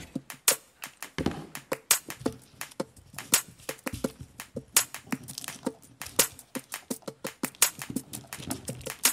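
Irregular crackling and clicking, several small clicks a second, as fingers handle a braided earphone cable and the crinkly paper sheet it lies on.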